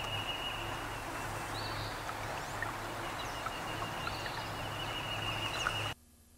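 Outdoor ambience: a steady hiss with a thin high whine, and a bird giving short rising chirps about every two and a half seconds. The sound cuts off abruptly near the end to near silence.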